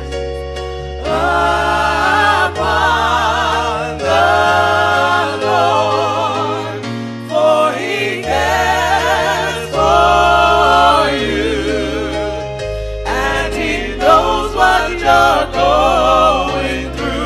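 Gospel music: voices singing long wavering held notes over sustained bass notes.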